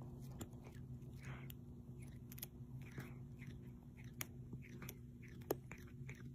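A cat's mouth sounds close up: faint, irregular wet clicks and smacks as it licks and chews, with one sharper click about five and a half seconds in.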